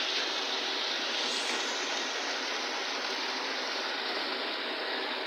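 Hamburger patties sizzling steadily in a hot frying pan.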